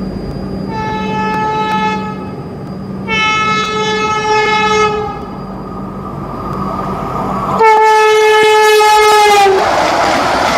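Electric train horn of the oncoming Howrah–Puri Vande Bharat Express, sounded three times, the last blast loudest and sagging in pitch at its end as it passes. The blasts give way about ten seconds in to the loud rush of the train passing alongside.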